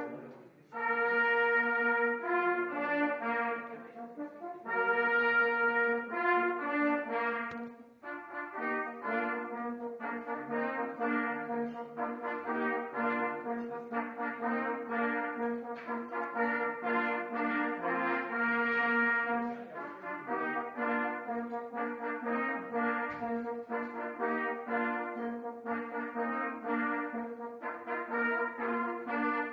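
Hunting horns playing a fanfare in several parts, one low note held steadily under the moving parts. Two short phrases with brief breaks, then a longer unbroken passage.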